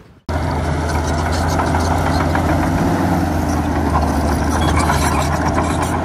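Heavy diesel engine of a construction machine running steadily with a low, even hum. It cuts in suddenly about a quarter of a second in.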